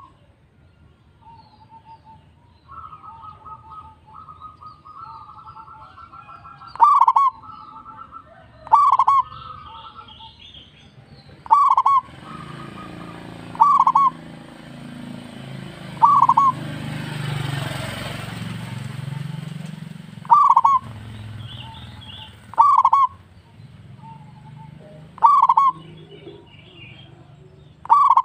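Zebra dove (perkutut) singing: about nine loud, short 'kung' coos, each led by a quick stutter of higher notes, repeating every two to three seconds. Softer rapid trilled cooing falls between the first few calls. A low rumble swells and fades through the middle.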